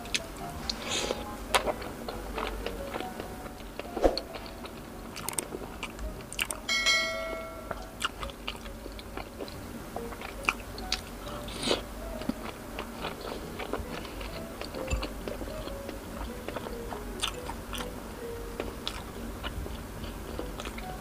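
Close-miked biting and chewing of battered, deep-fried street-food balls taken off a skewer, with scattered crisp clicks and crunches. A brief ringing tone sounds about seven seconds in.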